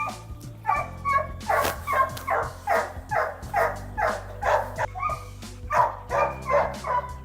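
A dog barking over and over at a steady pace, about two barks a second, starting just under a second in.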